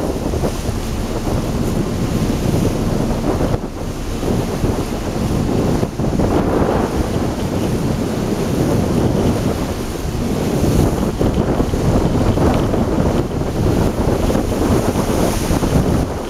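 Wind buffeting the microphone: a loud, rough, unbroken rumble that swells and dips irregularly, with brief lulls about three and a half and six seconds in.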